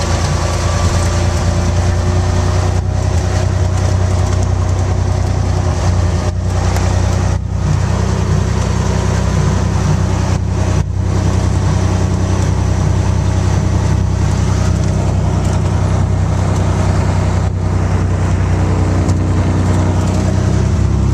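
A 1960 Cessna 210's six-cylinder Continental piston engine and propeller, running steadily at low taxi power as a constant low drone, heard from inside the cabin.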